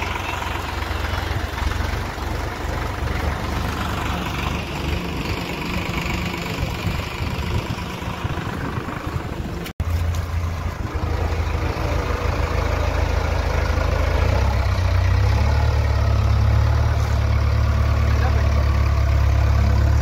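JCB backhoe loader's diesel engine running steadily, its low rumble growing louder and heavier in the second half as the loader arm lifts a bucket full of river water.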